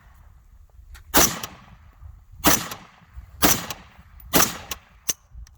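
AR-15-style semi-automatic rifle firing four shots about a second apart, each followed by a short echo, then a lighter sharp click near the end. The rifle cycles and feeds each round normally, the loading fault it had shown not recurring.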